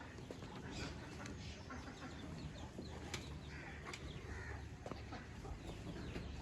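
Hens clucking faintly in a series of short, scattered calls over a low steady background.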